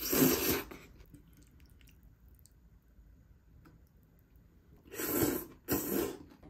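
Close-up eating sounds: soft chewing clicks, with three short noisy bursts of about half a second each, one at the start and two close together near the end.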